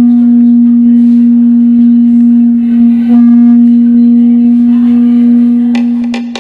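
A single long, steady horn-like note held for several seconds, dying away near the end as sharp percussion strikes come in.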